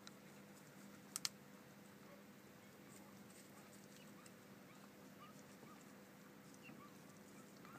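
Donkey munching dry tobacco stalks: faint crunching, with two sharp snaps about a second in.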